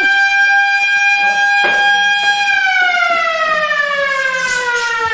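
An emergency alarm siren sounds one long tone that holds steady, then about halfway through starts slowly falling in pitch as it winds down. This is the crash alarm calling the airport's rescue and firefighting crew out. A knock comes about one and a half seconds in.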